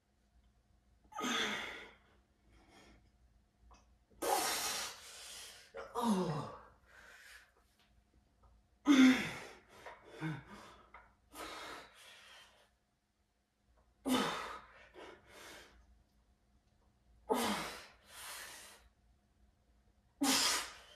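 A man's forceful exhales while curling weights, a hard breath out every two to four seconds, each rep getting one. A few of the breaths carry a short grunt that drops in pitch.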